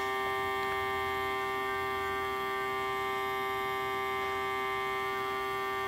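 Navage nasal irrigator's electric suction pump running with a steady hum while it draws saline through the nasal passages.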